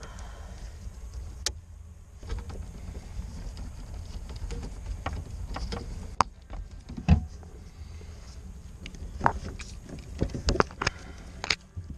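Scattered clicks and knocks of gloved hands working among wiring and the control unit inside a boat console, the loudest a little past halfway, over a steady low rumble.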